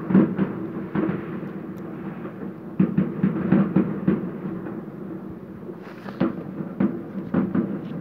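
New Year's fireworks going off, a dense run of bangs and crackling reports. The bursts come thickest about three to four seconds in.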